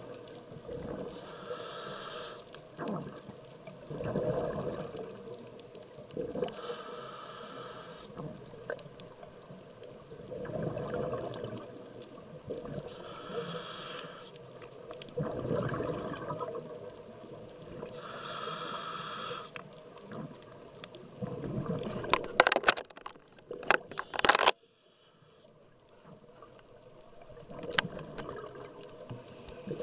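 Scuba diver breathing through a regulator underwater: a hissing inhale and a bubbling exhale, repeating about every five to six seconds. About 22 seconds in there is a cluster of loud clicks and knocks, then a few seconds of near quiet before the breathing resumes.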